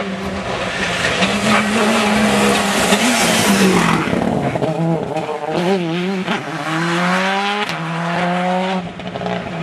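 A rally car's engine at full throttle as it passes close by on a tarmac stage and accelerates away. The pitch climbs in several rising sweeps, each cut off by a quick upshift, in the second half.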